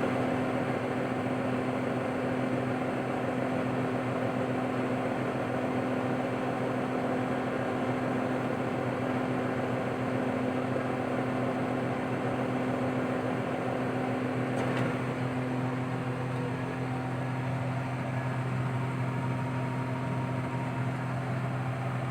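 A motor running with a steady, even hum and a constant low tone. A faint click comes about fifteen seconds in.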